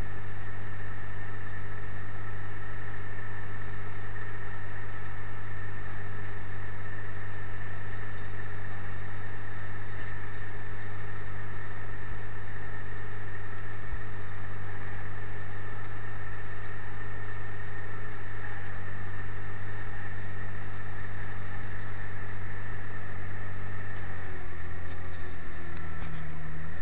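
Turbocharged Ursus tractor engine running steadily under load while pulling a reversible plough through the soil, with a slight drop in engine note near the end.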